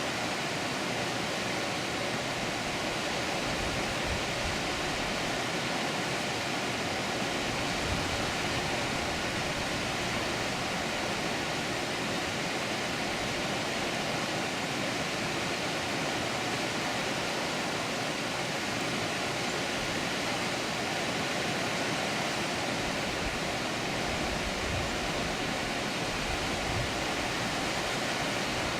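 Water pouring over a dam, a steady even rushing.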